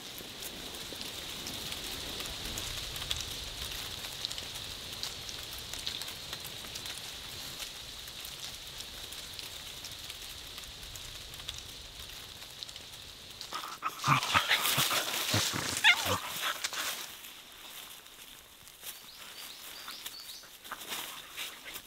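A dog in dry fallen leaves: a loud burst of rustling and scuffling with short, high dog cries comes about two-thirds of the way through. Before it there is a steady outdoor hiss, and after it a few softer scuffles.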